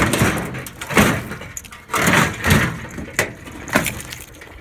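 Metal clanks and scraping from hand tools working on a microwave oven's sheet-metal casing and parts during dismantling: a series of irregular knocks, about one a second.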